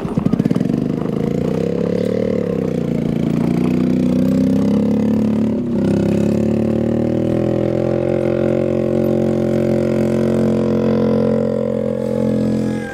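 A small engine running, its pitch rising and falling in the first few seconds and then holding steady. There is a brief knock about halfway through.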